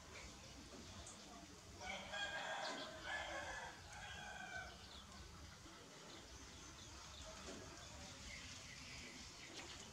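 A rooster crows once, starting about two seconds in and lasting about two seconds, over faint steady background noise.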